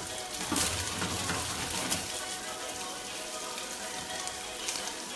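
Food frying in oil in a pan, a steady sizzling hiss.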